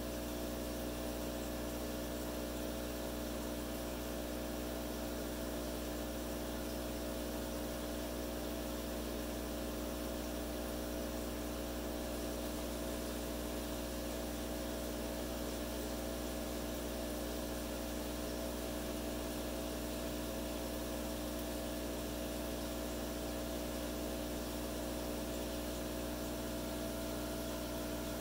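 Steady hum of aquarium pump equipment: a constant low drone with a few held tones over a faint hiss, unchanging.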